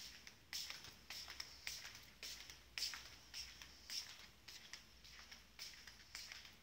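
Faint footsteps of a person walking at a steady pace, about two steps a second.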